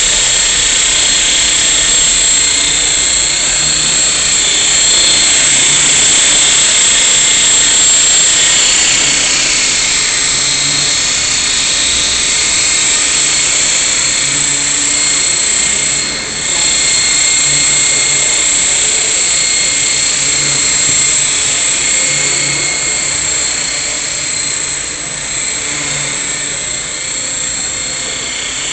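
Esky Belt CPX electric RC helicopter in flight: a steady high-pitched whine of its motor and drive with rotor noise, wavering slightly as it manoeuvres, with a brief dip about sixteen seconds in.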